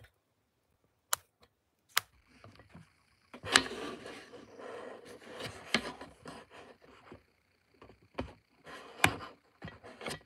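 Hands handling cardstock cards on a glass craft mat: a few sharp taps and clicks, with a stretch of rubbing and rustling from about three to seven seconds in.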